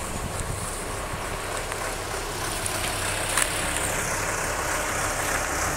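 Deutz-Fahr farm tractor's diesel engine running steadily with a low hum, with a single sharp click about three and a half seconds in.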